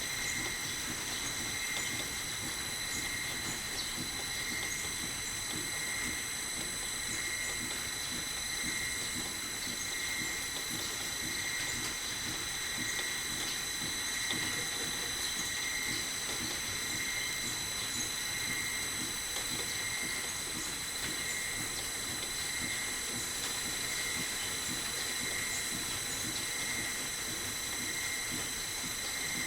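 Metal lathe running, a steady high-pitched whine with a gentle regular pulsing.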